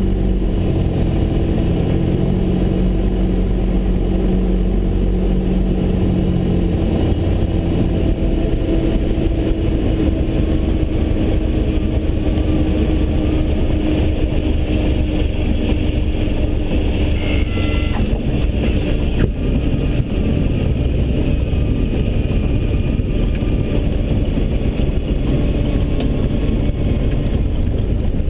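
Cockpit sound of a Cessna 172R's four-cylinder Lycoming IO-360 engine and propeller running at low power for landing, with steady wind noise. The engine note drops about seven seconds in as power comes back, and there is a short bump about two-thirds of the way through as the wheels meet the runway.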